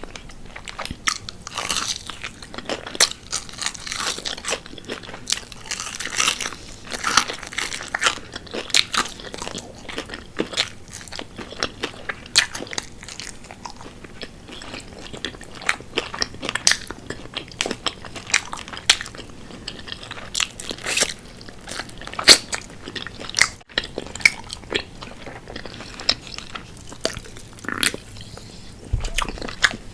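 Close-miked crunching and chewing of crispy fried chicken wings: irregular sharp, crackly bites and crunches with wetter chewing between them.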